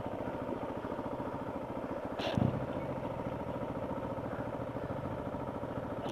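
Dirt bike engine idling steadily with an even, rapid pulse, and a single short clack about two seconds in.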